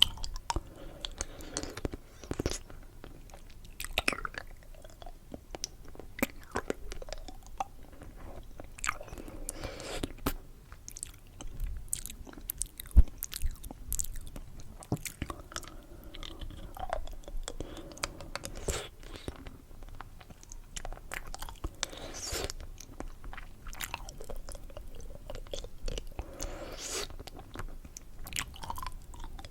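Close-miked chewing and crunching of candy: irregular crisp bites and clicks with softer mouth sounds between, the sharpest snap about halfway through.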